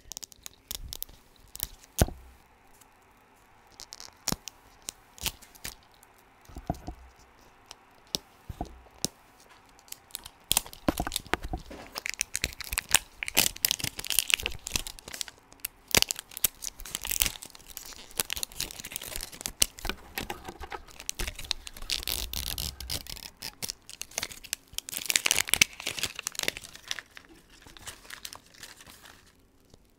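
Plastic wrapper being torn and peeled off a Zuru Mini Brands capsule ball. It starts as scattered clicks and small crinkles, then turns into steady crackling and tearing about ten seconds in that lasts until near the end.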